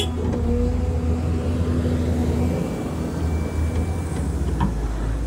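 Excavator's diesel engine running with a steady low drone. A hum over it drops out about halfway through, and a faint high whine follows briefly.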